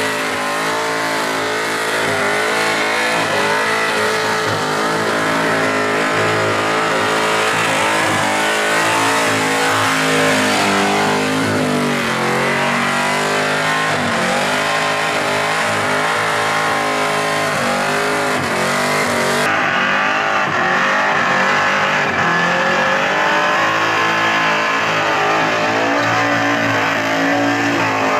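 Holden Commodore ute's V8 engine held at high revs through a burnout, the revs dipping and climbing again repeatedly, over the noise of the spinning rear tyres.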